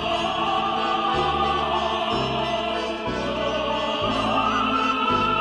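Background music: a Russian folk piece played by a balalaika ensemble, with a held melody over bass notes that change about once a second.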